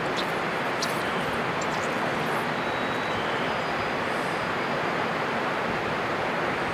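Shallow river running over a bed of rounded stones: a steady, even rush of flowing water.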